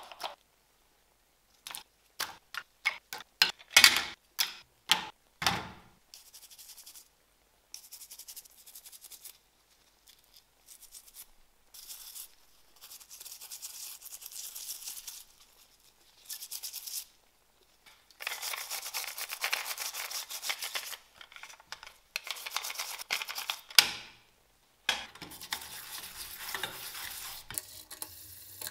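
A toothbrush scrubs a rusted metal model car body in soapy water in a glass dish, making a brushing hiss that comes in stretches with pauses between them. Near the start there is a quick run of sharp clicks and knocks.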